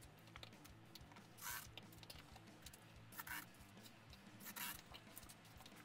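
Near silence: faint room tone with a low hum and a few soft, brief rustles.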